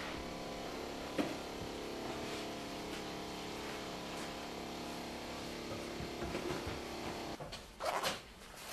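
Steady mechanical hum of equipment in a small room, with one sharp click about a second in. Near the end the hum cuts off and a short rasp follows as the zip of a fleece top is pulled.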